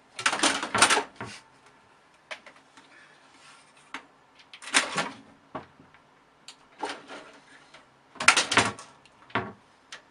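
A cat scrabbling and clawing at a computer tower case: short scraping, clattering bursts in uneven clusters, several seconds apart.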